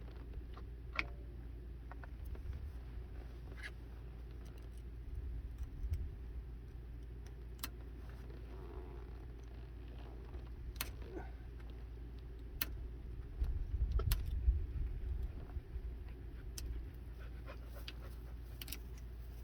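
A dog panting close by, loudest about two-thirds of the way through, over a steady low hum, with scattered sharp clicks.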